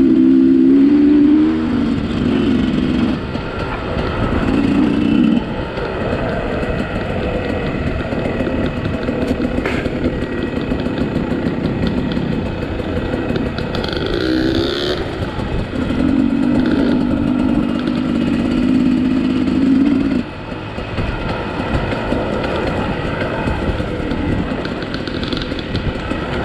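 Dirt bike engine ridden on and off the throttle, swelling in several loud stretches and dropping back between them, over a constant rumble and rattle of the bike moving over rough ground.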